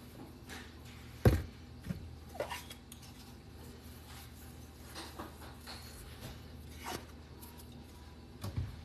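Quiet kitchen handling sounds while seasoning bread slices on a baking tray: a sharp knock about a second in, then a few faint taps and clicks, over a low steady hum.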